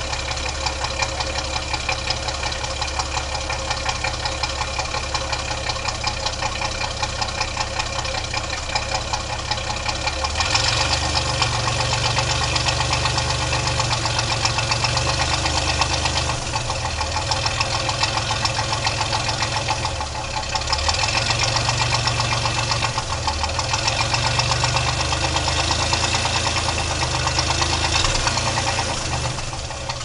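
1968 GMC pickup's 305 V6 running through its stock exhaust, heard at the tailpipe with steady, rapid exhaust pulses. It idles at first, then about ten seconds in it is raised to a faster, louder running speed and held there, easing back briefly twice. It drops back to idle near the end.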